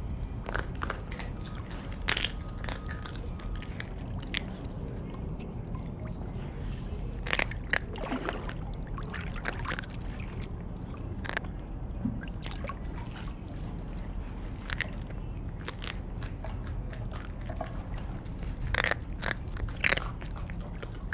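A sea otter biting and crunching through a crab's shell: sharp cracks at irregular intervals of a few seconds, the loudest near the end.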